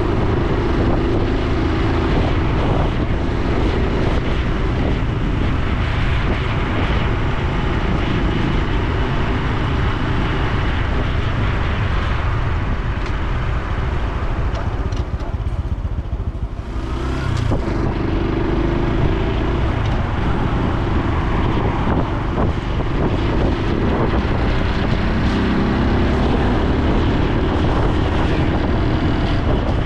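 Honda Super Cub C125's single-cylinder engine and exhaust while riding. The engine eases off briefly around the middle, then its pitch rises twice as the bike picks up speed again.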